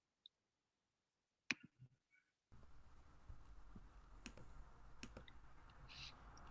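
Near silence broken by a couple of faint clicks, then a microphone opens about two and a half seconds in, bringing a steady low room hum and hiss with a few more sharp clicks.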